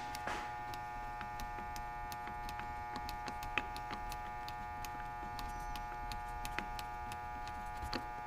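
Faint clicks of a Yamaha YZ250 fork-cap clicker adjuster being turned all the way out, one detent at a time, over a steady electrical hum.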